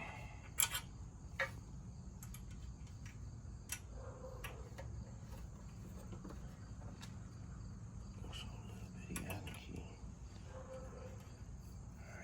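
Sparse metal clicks and clinks of hand tools being handled while bolts are tightened on the mini bike, the two loudest about half a second and a second and a half in. A steady high hum runs underneath.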